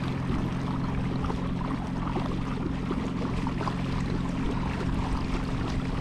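Water lapping and splashing around a kayak, over a steady low hum.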